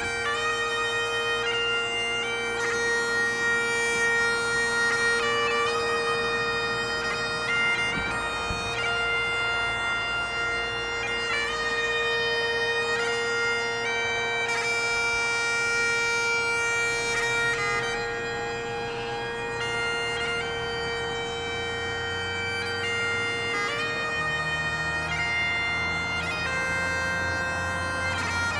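Great Highland bagpipe playing a tune: the chanter melody moves from note to note over one steady, unbroken drone.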